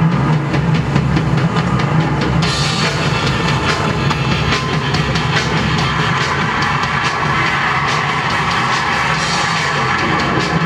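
The show's soundtrack: music with a steady, driving drum beat, getting brighter about two seconds in.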